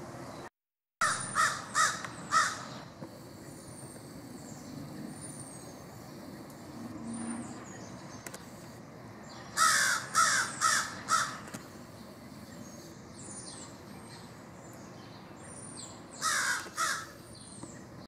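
American crow cawing in three runs: about four harsh caws a second in, five more near the middle and three near the end. Faint, short, high chirps of a small bird come between the runs.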